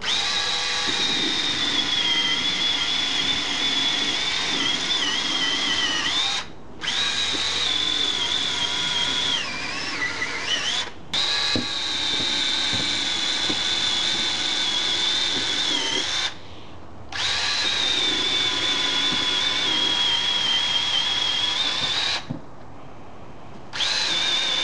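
Homemade chainsword, a low-profile saw chain with a tip sprocket on its guide bar, running with a steady high motor whine as it cuts through a pumpkin. The whine dips in pitch for a moment about ten seconds in and breaks off briefly four times.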